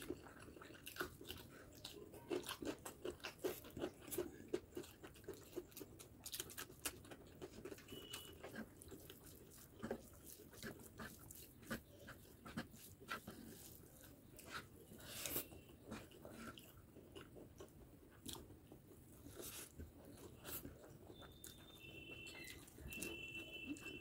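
Quiet close-up eating sounds: a person chewing and crunching food, with many short sharp clicks, densest in the first several seconds and more scattered after.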